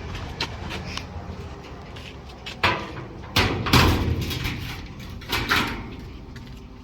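A handful of sudden metal knocks and clanks, several falling between about two and a half and five and a half seconds in, from the corrugated steel panels of a grain bin being handled during dismantling.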